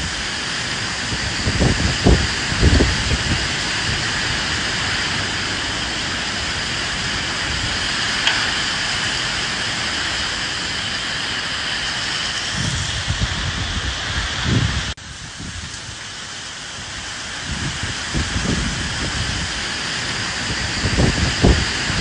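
Steady rain with gusts of wind surging a few times. About fifteen seconds in the sound cuts abruptly to a lower level, then the gusts build again near the end.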